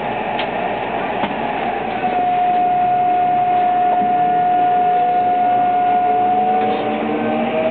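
Kintetsu 22600 series electric train pulling away from a station, heard from inside the car: its traction inverter whines on one steady tone from about two seconds in. Near the end the whine splits into several tones that rise in pitch as the train gathers speed.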